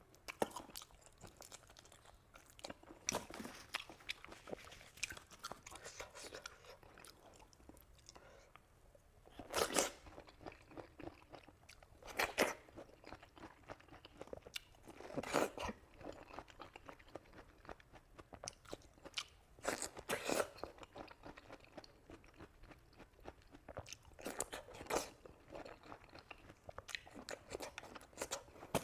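A person chewing food close to the microphone, with crunchy bites and louder crisp crunches every few seconds.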